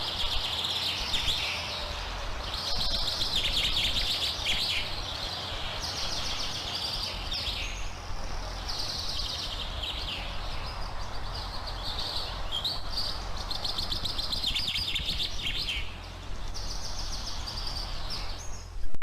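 Birds singing in short bursts of fast chirping trills, over a steady hiss and a low hum.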